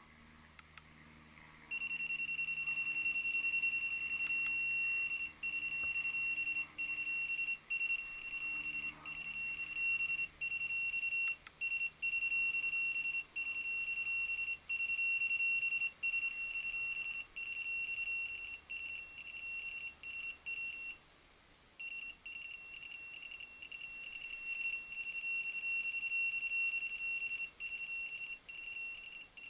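SatLink WS-6933 satellite finder's buzzer sounding a high-pitched steady tone that keeps dropping out for an instant, starting about two seconds in and pausing for about a second two-thirds of the way through. The tone is the meter signalling that the connected dish is picking up a satellite signal.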